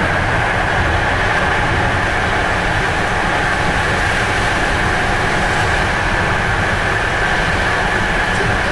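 A PKP passenger train running along the line, heard from inside the carriage: a steady rumble and hiss with a constant high whine.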